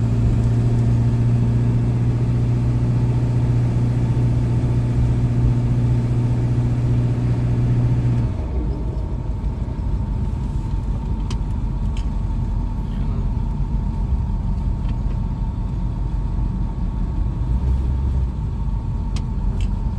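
Truck engine running while driving: a steady low hum that drops away abruptly about eight seconds in, leaving a lower, rougher running noise with a few light clicks.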